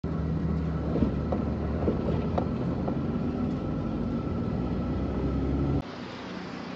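Engine and road noise inside the cabin of a moving car, a steady low hum with a few short knocks and rattles. It cuts off suddenly near the end to quieter street noise outdoors.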